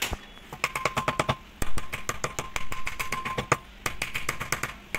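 Rapid hammer taps on the end cover of a small electric cooler motor, several blows a second in runs with brief pauses, each leaving a short metallic ring.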